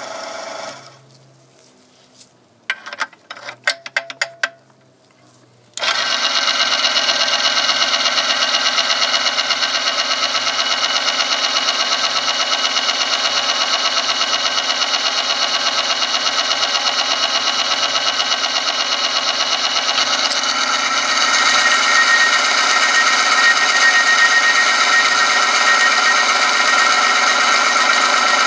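A few clicks, then about six seconds in the friction oil-testing machine starts up: its electric motor spins a steel ring through the oil against a test sample pressed on by a weighted lever, a loud, steady whine with many tones. About two-thirds of the way through it grows louder and shriller as a heavier weight loads the sample.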